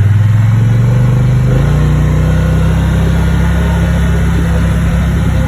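Four-wheeler (ATV) engine running as it rides along, its engine note changing about a second and a half in, then holding steady.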